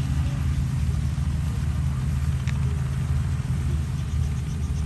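Helicopter running with its rotor turning: a steady low pulsing rotor beat over engine noise.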